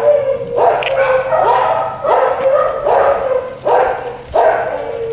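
Jack Russell terrier barking and yipping excitedly and repeatedly, about eight sharp, high-pitched barks, roughly one every two-thirds of a second.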